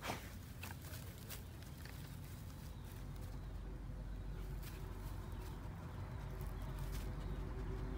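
A dog scrabbling at soil and dry grass at a burrow, then pushing up through tall grass: rustling and scattered sharp crackles, the loudest right at the start, over a steady low rumble.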